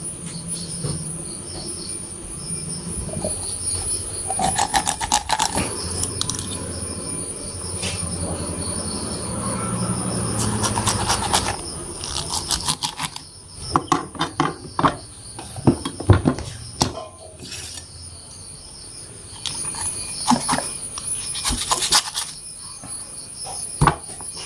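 Sharp knife cutting and chopping raw chicken on a cutting board: handling and rustling, then a series of sharp knocks as the blade strikes the board. A steady high-pitched insect drone runs behind.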